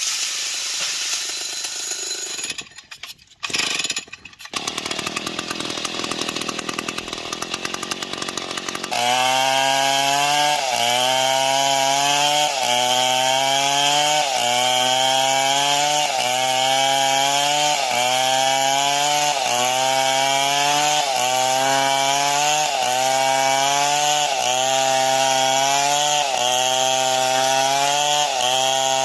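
Large two-stroke chainsaw running and cutting wood. The sound breaks up briefly about three seconds in. From about nine seconds it is louder, and its pitch sags and recovers in a regular cycle roughly every second and a half as the chain bites into the wood.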